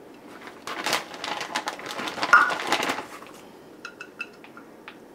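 Shredded cheese rustling and scraping as it is shaken and spread from a plastic measuring cup over a casserole in a ceramic baking dish, for about two seconds. A few light clinks of the cup on the dish follow near the end.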